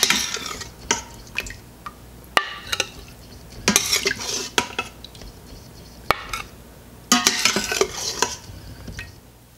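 Metal serving spoon scraping and clinking in the stainless steel inner pot of an Instant Pot as Salisbury-style beef patties are scooped out of the gravy. The scrapes and clinks come in short bursts, with a few sharp clicks between them.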